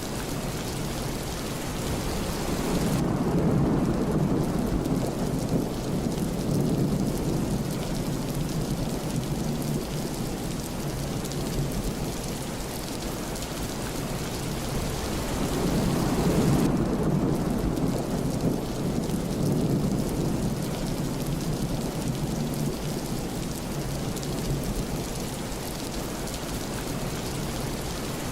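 Steady rain with two long, low rolls of thunder, the first swelling up about three seconds in and the second about fifteen seconds in.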